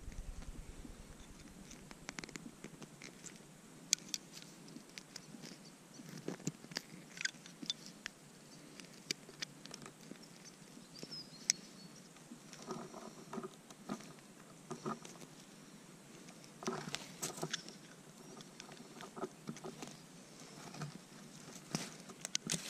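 Pliers nibbling and snapping at the stub of a hard plastic minnow lure's broken bib: faint scattered clicks, small snaps and crunching, in clusters, mixed with the rub of fingers handling the lure.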